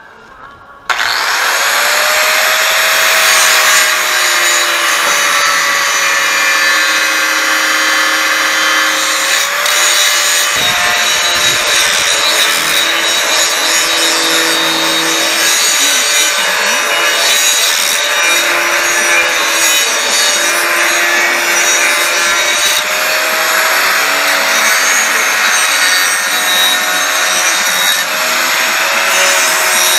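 Electric angle grinder grinding on steel frame tubing: a loud, continuous grinding with a motor whine that dips and rises as the disc bites. It starts suddenly about a second in.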